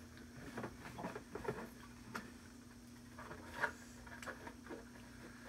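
Faint, scattered light clicks and taps of a cardboard box and small plastic parts being handled, over a steady low hum.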